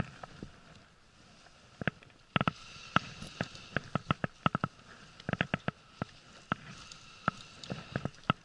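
Baitcasting reel being wound by hand, with irregular sharp clicks and knocks, some ringing briefly, over a faint hiss that comes and goes.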